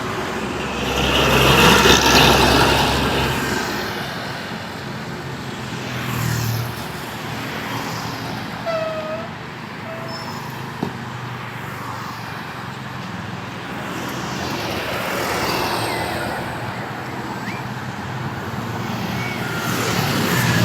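Road traffic passing: engine and tyre noise swelling and fading as vehicles go by, loudest about two seconds in and building again near the end.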